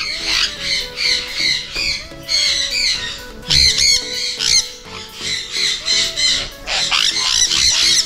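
A flock of caged sun conures squawking over and over in harsh, loud, overlapping calls.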